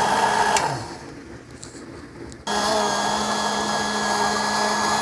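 Hamilton Beach DrinkMaster drink mixer's motor running with a steady whine as its spindle churns a thick milkshake in a metal can; the sound dies away about a second in and the motor starts up again abruptly about two and a half seconds in, running steadily with a stronger low hum.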